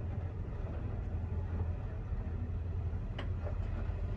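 A Nissan Xterra's engine idling as a steady low rumble while the SUV waits at the top of a steep slickrock descent, with one sharp click about three seconds in.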